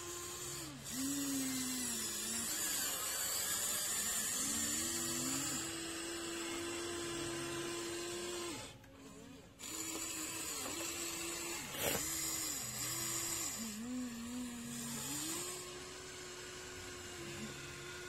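Radio-controlled model excavator's electric motors whining as the bucket digs and the arm lifts, the pitch sliding down and back up as each movement starts and stops under load. The motors pause briefly about nine seconds in, and there is a sharp click around twelve seconds.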